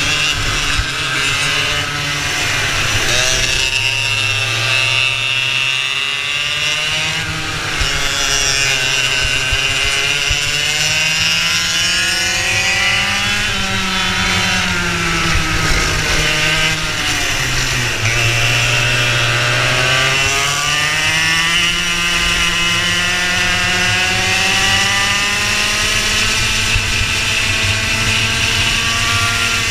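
Racing go-kart engine at speed, heard from the driver's seat, its pitch climbing as it accelerates and dropping as it slows for corners, several times over.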